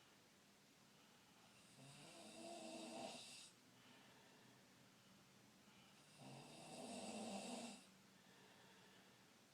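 A person snoring: two long snores about four and a half seconds apart, each lasting around two seconds, with a rasping hiss over a low buzzing tone.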